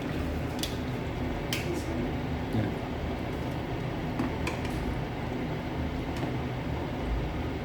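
A few sharp clinks and knocks of kitchen utensils and a mixer-grinder jar being handled, over a steady background hum.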